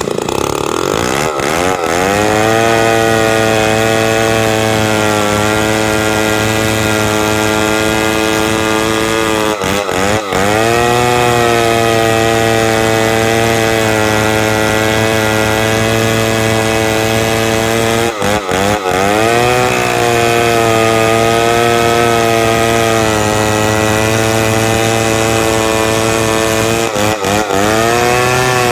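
Two-stroke chainsaw revving up from idle, then held at high revs while ripping timber into beams. Three times the pitch drops briefly and climbs back as the throttle is eased and opened again.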